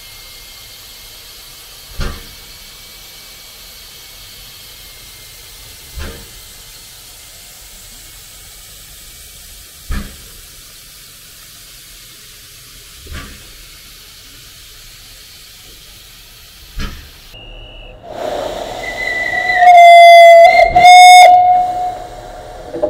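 Prussian T7 steam locomotive No 12, built 1903, hissing steam steadily, with a dull knock about every four seconds. Near the end the hiss swells and the locomotive's steam whistle gives two loud blasts.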